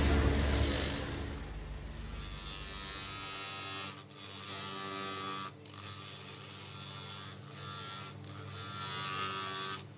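Grinding wheel spinning against a Damascus steel sword blade: a steady motor whine with the grind of steel on the abrasive wheel, briefly dropping out several times. A louder low rumble fills the first second or so.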